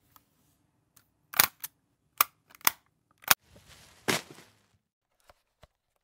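Cassette boombox being handled: a string of sharp mechanical clicks from its keys and case, five loud ones within about two seconds, then a short rush of hiss about four seconds in and two faint clicks near the end.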